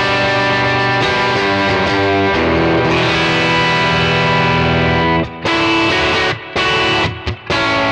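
Electric guitar played through a Kemper profile of a '57 Fender Tweed Bandmaster with three 10-inch Jensen P10s: chords strummed and let ring, changing every second or two, with a raw, lightly overdriven edge. Several brief stops between chords in the second half.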